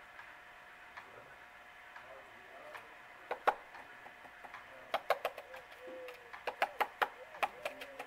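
Hairy woodpecker pecking at tree bark while foraging: irregular sharp taps, a few faint ones at first, then louder taps in quick clusters from about three seconds in. Faint low coos of another bird in the second half.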